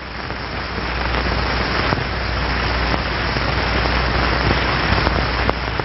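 Rushing wind sound effect on an old film soundtrack, a steady hiss-like rush of air that swells over the first second or two and then holds, with a low hum underneath and a few faint clicks.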